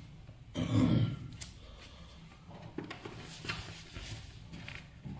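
A man briefly clearing his throat about a second in, followed by faint scattered rustles and ticks.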